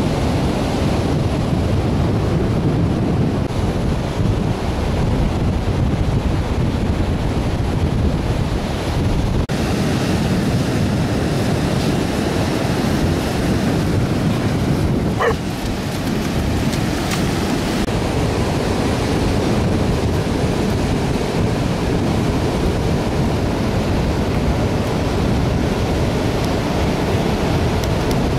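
Wind-driven choppy surf breaking on the beach, with wind buffeting the microphone in a steady rushing noise. About halfway through there is one brief high squeak.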